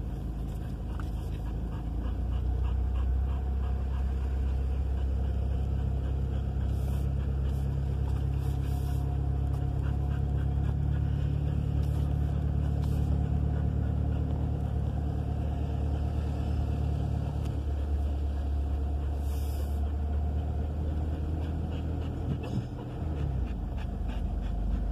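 A car's engine and tyres running with a steady low drone, heard inside the cabin while driving slowly. A dog pants on the back seat.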